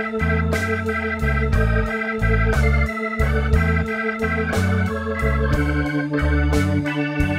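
Background music: an organ-led instrumental with long held chords, a moving bass line and a steady drum beat.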